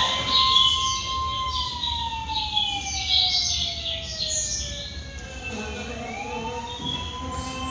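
Ambulance siren sound effect in an animated film's soundtrack, played over hall loudspeakers: a single wailing tone that holds, falls slowly over several seconds, then rises again near the end.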